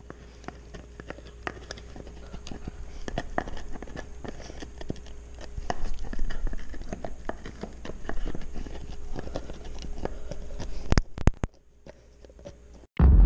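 Golden retriever gnawing a large chew bone up close: an irregular run of teeth clicking and scraping on the bone, with a few sharp knocks about eleven seconds in before it goes quieter.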